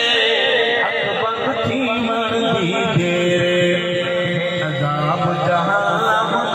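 A man chanting a naat (devotional poem) in a melodic, sung recitation into a microphone, with a long held note from about three seconds in.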